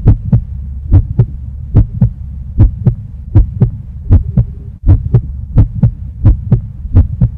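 Heartbeat sound effect: paired low thumps, lub-dub, repeating evenly at roughly 75 beats a minute over a steady low drone.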